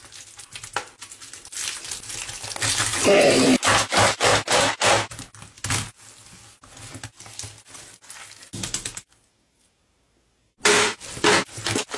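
Hands squelching and slapping a wet heap of raw minced meat, with the crinkle and crack of the foil cases of mince pies being pressed into it: a quick run of sharp wet slaps and cracks. The sound drops out abruptly about nine seconds in and picks up again a second and a half later.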